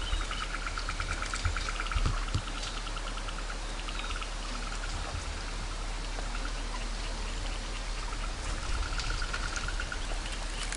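Steady rush of a shallow river, with a fast trill of repeated high notes from about one to two and a half seconds in and again near the end, and a few dull thumps in the first two seconds.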